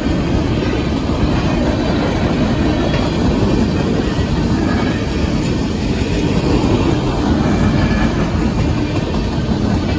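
Union Pacific coal train's cars rolling steadily past at speed, a continuous loud noise of steel wheels on the rails.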